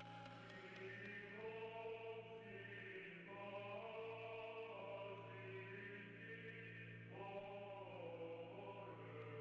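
Faint background music: slow, sustained choir-like chords over a steady low drone, the chord changing a few times.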